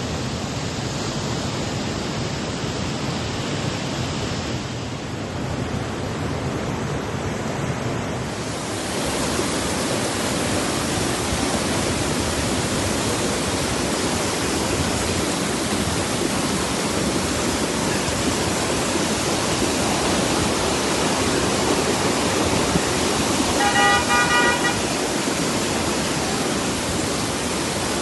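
Heavy rain and road traffic on wet streets: a steady wash of noise that grows louder about eight seconds in. A car horn sounds for about a second near the end.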